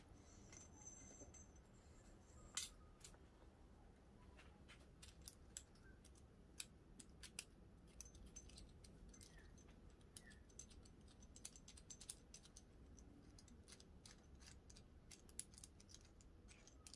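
Near silence with faint, scattered light clicks and ticks from a small metal coax connector being handled and turned in the fingers, with one louder click about two and a half seconds in.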